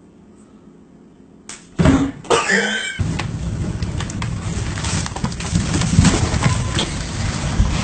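A low steady hum, then about two seconds in a short loud burst, followed by continuous crackling and scraping: a paper bag rustling and a cardboard box scraping on the floor as cats move about inside them.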